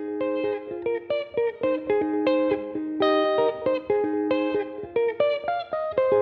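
Background music: a guitar picking a melody of single plucked notes in a steady run.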